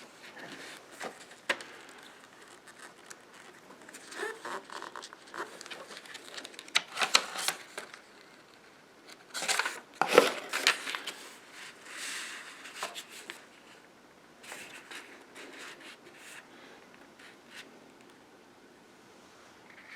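Close-up handling of paper and small objects: irregular rustling, crinkling and scratching with scattered sharp clicks, loudest in bursts about seven and ten seconds in.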